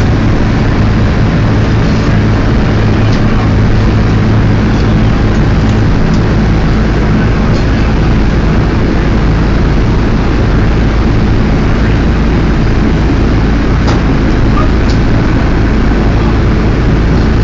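Steady drone of a C-47 Dakota's twin Pratt & Whitney R-1830 radial engines and propellers, heard from inside the cabin, with a couple of faint clicks near the end.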